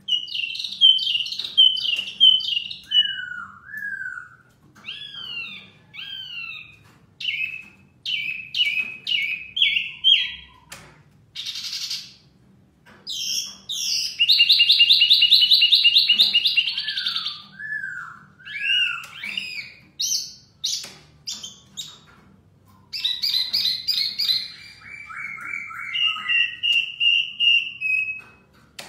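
Caged wambi mini (hwamei mini) songbird singing loudly in varied whistled phrases, quick up-and-down slurred notes and chattering trills, with a long fast trill about halfway through, trading song with a poksay laughingthrush.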